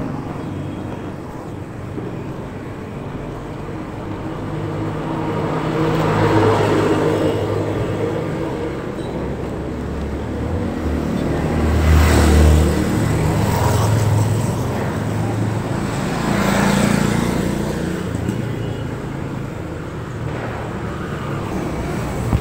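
Background road traffic: a steady low rumble with several vehicles swelling up and fading away, the loudest about halfway through.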